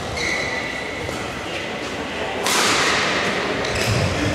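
Badminton doubles rally: racket strokes on the shuttlecock with short squeaky tones early on. About two and a half seconds in comes a sudden loud sharp rush of noise that lasts about a second.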